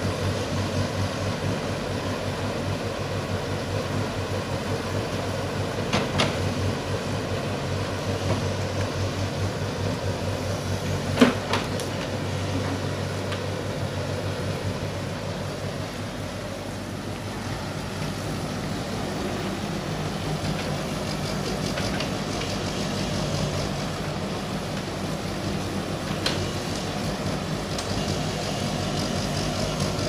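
JingGong JG100S wheeled excavator's diesel engine running steadily under working load. A few sharp knocks stand out, the loudest about eleven seconds in.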